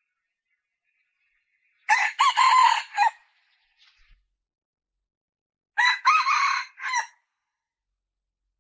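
Red junglefowl calling twice, about four seconds apart; each call lasts just over a second and is made of a few linked notes.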